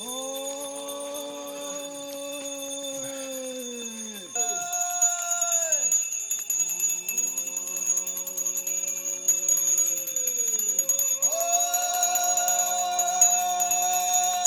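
Zen monks' long drawn-out 'Hō' alms-round calls: four held notes one after another, each a few seconds long and dropping in pitch as it dies away.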